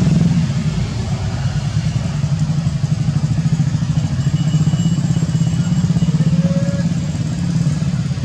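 A motor engine running steadily with a low, rapid, even pulse, like an idling motorbike.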